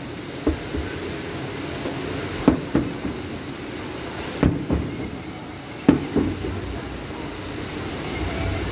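Aerial firework shells bursting: sharp booms in clusters of two or three about every one and a half to two seconds, each with a short echo, over a steady background hiss.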